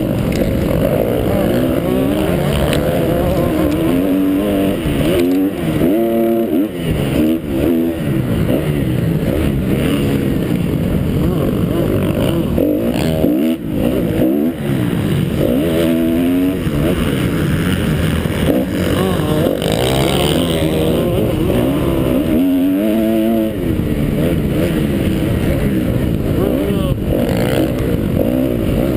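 2012 Kawasaki KX250F's single-cylinder four-stroke engine at race pace, revving up and down again and again through the gears, with wind rushing over a helmet-mounted microphone.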